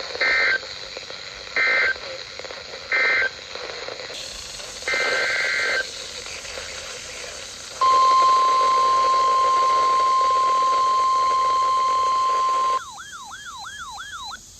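Emergency Alert System tones: three short bursts of screeching SAME data, the end-of-message code, then a longer data burst. After that the steady single-pitch 1050 Hz NOAA Weather Radio alert tone sounds for about five seconds, the loudest part. Near the end a quick warble of rapidly repeating rising sweeps takes over.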